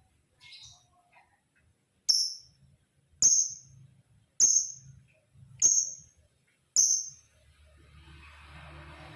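Male lovebird giving five loud, shrill, high-pitched calls, evenly spaced a little over a second apart, each sharp-onset and brief. A faint hiss follows near the end.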